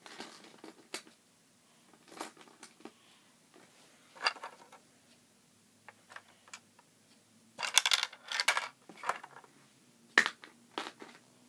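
Plastic Lego pieces clicking and clattering as small cargo boxes are handled and slid into a toy truck's trailer. The taps are scattered, with a denser run of clatter about eight seconds in.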